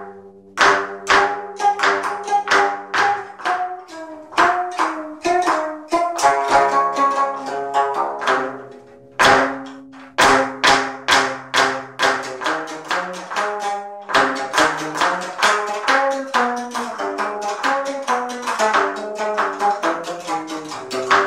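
Solo geomungo, the Korean fretted six-string zither, its strings struck and plucked with a bamboo stick. Each note has a sharp attack and a short ringing decay, with a brief pause about nine seconds in.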